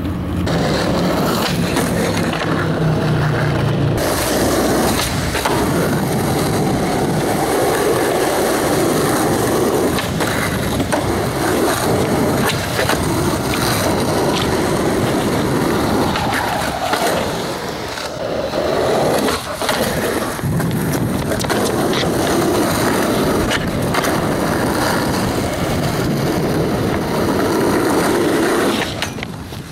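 Skateboard wheels rolling loudly over rough asphalt, with occasional sharp clacks of the board's tail popping and landing.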